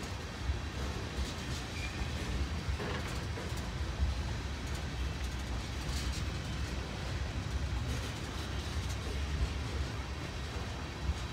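A train rolling by: a steady low rumble with faint clicks from the wheels now and then.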